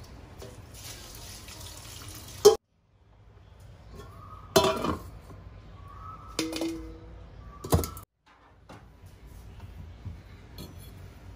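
Metal cookware clanking during kitchen work: four separate knocks, some leaving a short ringing tone, over a low steady hiss. The sound drops out abruptly to silence twice.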